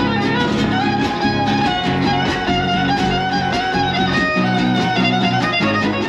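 Lively violin and guitar music with a steady beat, played live for dancing.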